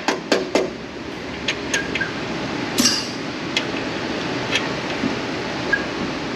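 Steel locking pliers used as a hammer, tapping a brake hose fitting into its frame bracket: three quick metal taps, then a few scattered lighter clinks, the loudest ringing briefly about three seconds in.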